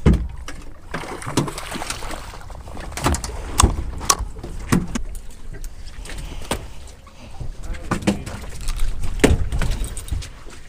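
Wind and water rumbling on the microphone of an open fishing boat, with scattered sharp knocks and clatter on the fibreglass deck.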